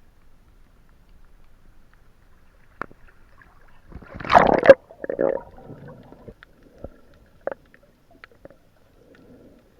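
Water gurgling and sloshing, with a loud burst about four seconds in, a smaller one just after, and scattered knocks.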